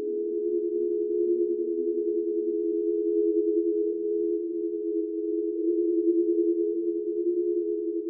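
Ghost sound effect: a low, eerie drone of several close, steady tones that beat against one another, wavering slightly in loudness.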